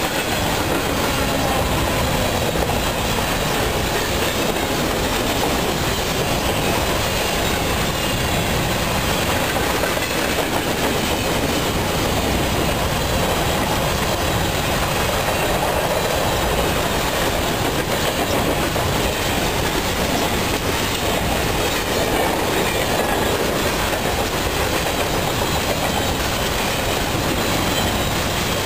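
Freight train of covered hopper cars rolling past, steel wheels running on the rails with a steady, even noise.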